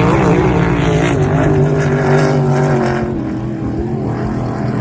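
Racing powerboat engine running hard at a steady high pitch, easing off a little after about three seconds.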